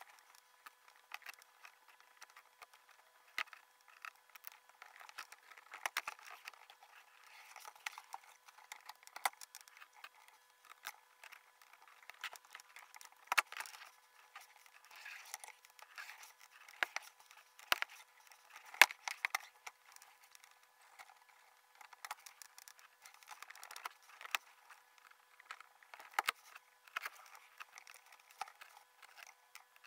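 Metal laparoscopic instruments clicking and scraping, with suture thread rustling, during practice suturing of an elastic-band bowel model; the clicks come fast and irregular, as the footage is sped up five times.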